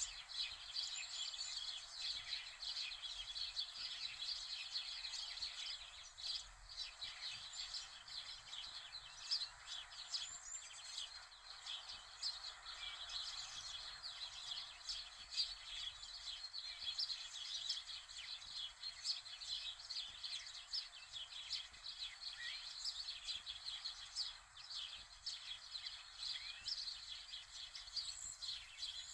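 Many small birds chirping continuously, a dense chatter of short high chirps over a faint steady hiss.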